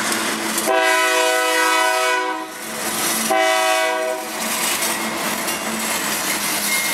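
Locomotive air horn sounding two blasts, a long one about a second in and a shorter one a second later, over the steady running noise of the train on the tracks.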